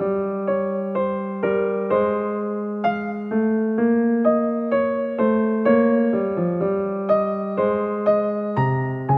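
Background piano music: a gentle melody of single notes struck about twice a second, each fading away before the next.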